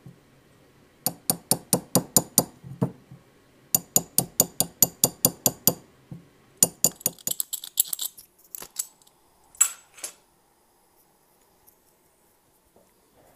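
Small hammer tapping a steel hand tool against a metal jewellery piece resting on a steel bench block. Quick metallic taps come about five a second in three runs, then a few scattered taps before it goes quiet.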